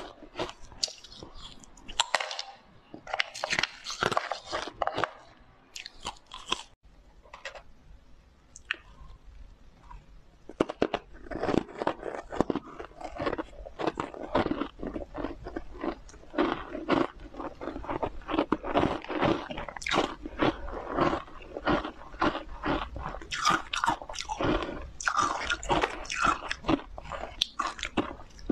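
Frozen matcha green-tea ice discs being bitten and chewed, a fast run of crisp crunches. The crunching thins out and goes quieter for a few seconds in the first half, then runs on almost without pause.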